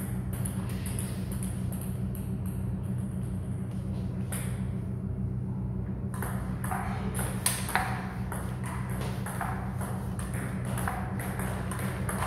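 Table tennis rally: a celluloid ball ticking sharply off paddles and the table, a few strokes early on and then a quick exchange of about two hits a second from about halfway through.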